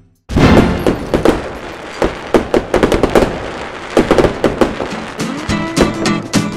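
Fireworks crackling and popping in a dense, irregular volley that starts abruptly under a second in, with music underneath that grows clearer near the end.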